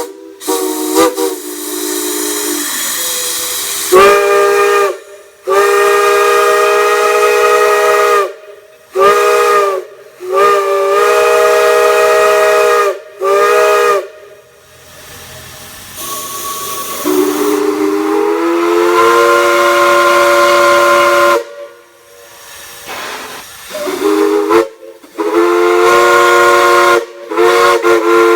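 A large whistle at a whistle blow, blown in a series of blasts: short toots and long pulls, each sounding several steady notes at once, with a hiss between blasts. On one long blast a little past the middle, the pitch slides up as the valve opens, then holds.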